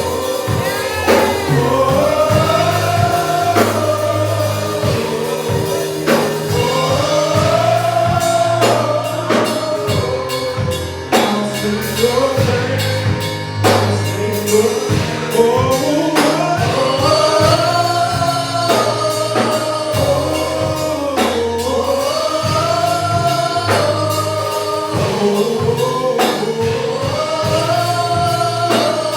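Gospel worship song: voices singing in repeating, arching phrases over a live band with bass and drums.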